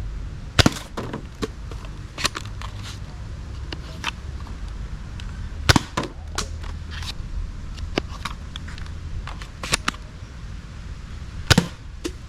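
Toy blaster being handled: a string of sharp plastic clicks and snaps at uneven intervals, a few louder than the rest, over a steady low background rumble.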